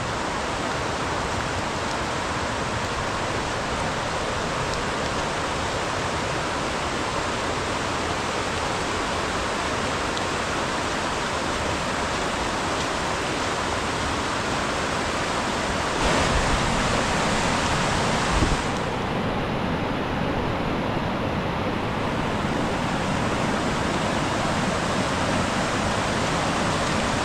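A river in full spate: a steady rush of fast-flowing water, swelling a little louder for a couple of seconds past the middle.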